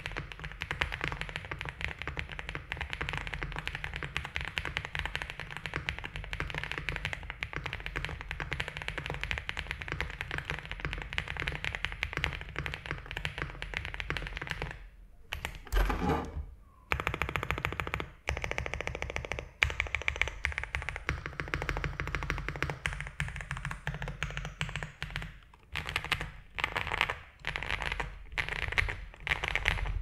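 Typing on a Rainy75 mechanical keyboard in its aluminium case, with its stock factory-lubed switches, doubleshot ABS keycaps and the factory foams still in: a fast, even run of key clacks, a brief pause about halfway with one louder thump, then more bursts of typing with short gaps.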